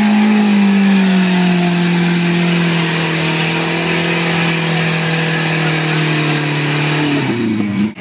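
Small 4x4's engine held at high revs as it ploughs through deep mud with its wheels spinning. The engine note sinks slightly as the mud drags on it, holds steady, then drops and wavers just before the end.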